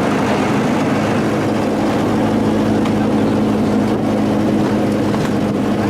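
An engine running steadily at constant speed: a loud, even drone with a hum that holds its pitch.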